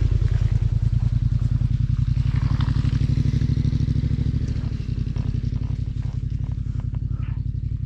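Adventure motorcycle engine idling steadily close to the microphone, easing slightly in level a little past halfway, with a few light clicks over it.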